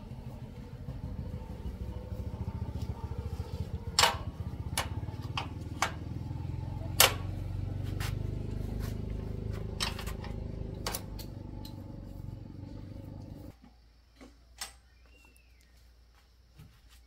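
Sharp metallic clicks and knocks from hand work on a bicycle's rear hub, over a steady low mechanical rumble that cuts off abruptly a little before the end, leaving quieter background with a few soft ticks.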